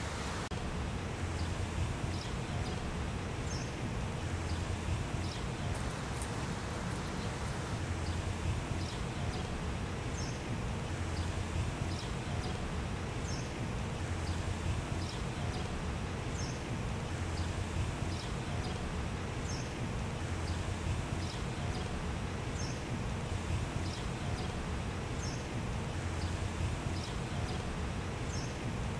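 Steady outdoor background noise: a low rumble that swells and fades every couple of seconds, with faint short high chirps repeating at fairly even intervals.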